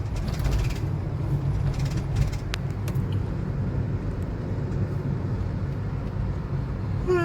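Steady low rumble of a car's engine and tyres on the road, heard from inside the cabin, with a few faint clicks.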